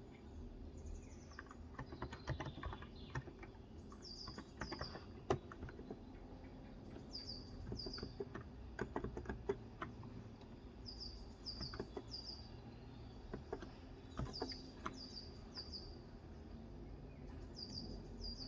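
Typing on a Cox Endeavour electrostatic-capacitive tenkeyless keyboard with 35 g switches: soft, irregular keystrokes with a few louder single clicks. Over the typing, a bird calls every few seconds in quick runs of two to four short, high, falling chirps.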